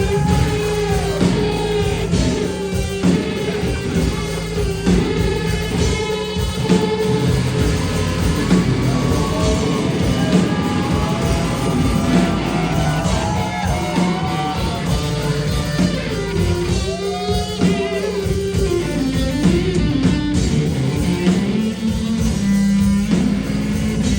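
Live rock music: electric guitar playing over a drum kit, continuous and loud.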